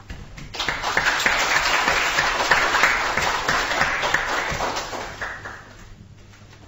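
Audience applauding in a hall. The clapping starts about half a second in and fades away over the last two seconds.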